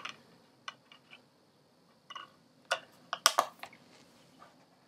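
Sharp clicks and taps of compact discs being handled and pressed onto the spindles of a hardcover box-set book, with a quick cluster of louder knocks about three seconds in.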